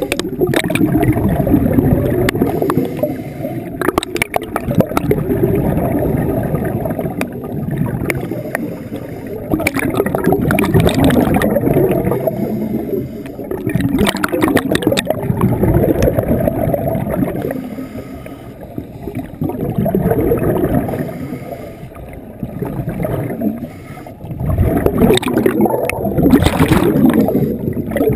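A diver's exhaled air bubbling and gurgling underwater, swelling and fading every few seconds with each breath.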